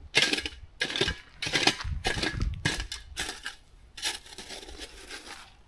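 Granular fertilizer being shaken out of its container and scattered around newly planted shrubs: an irregular series of short rattling bursts, roughly one every half second.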